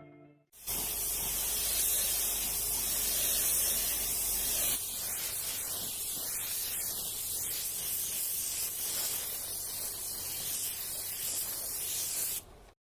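A steady hiss, like air or spray, that starts abruptly, with a low rumble underneath for the first few seconds; it cuts off suddenly near the end.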